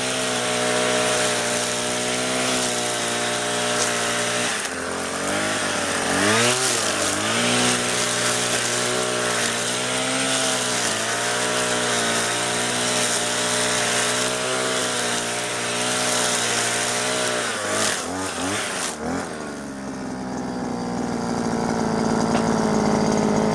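VITO VIR43E 43 cc two-stroke brush cutter running at high revs as its nylon-line head cuts grass, the engine note dipping and swinging briefly twice under load. Near the end the revs drop to a lower, steady idle.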